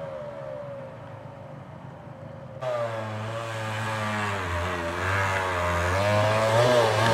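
Small off-road vehicle engine revving. It comes in suddenly about two and a half seconds in and grows steadily louder, its pitch wavering up and down with the throttle.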